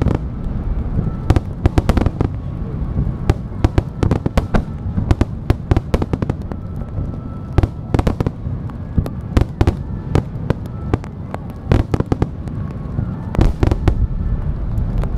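Fireworks finale barrage: many aerial shells and ground-fired comets going off together, sharp bangs several times a second over a continuous low rumble of overlapping reports.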